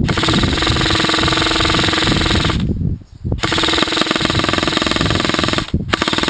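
Airsoft M4 rifle firing full-auto: a rapid run of shots with a steady motor whine under it, in three bursts. The first lasts nearly three seconds, the second a little over two, and a short third comes near the end.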